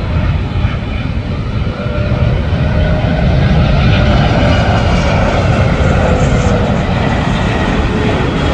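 Boeing 777 twin jet engines on final approach, passing low overhead: a loud, steady rumble with a faint whine that slides slowly down in pitch, loudest about halfway through.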